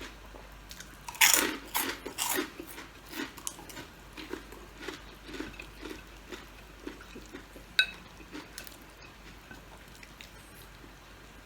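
A person bites into crunchy food about a second in, then chews with steady crunching, about two chews a second, growing softer. A single sharp click with a brief ring comes near the eight-second mark.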